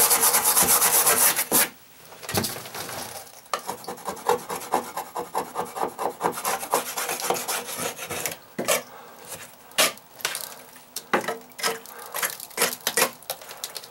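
Hand wire brush scrubbing hard and fast against wooden deck framing to take a white deposit off. It stops about a second and a half in, then goes on in lighter, quick short strokes that thin out to scattered scrapes near the end.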